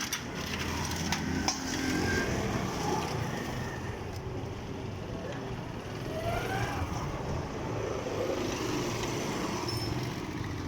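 Steady street traffic noise from passing vehicles, with faint voices in the background.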